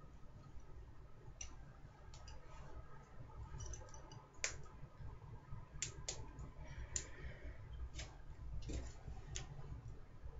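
Scattered small clicks and taps, about ten of them, as hair is twisted and a foam hair roller is handled and fastened, over a low steady hum.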